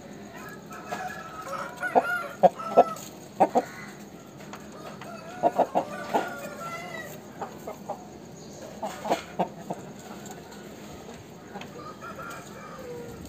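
Aseel chickens calling: a series of short, sharp clucks in clusters, with drawn-out crowing calls from roosters among them.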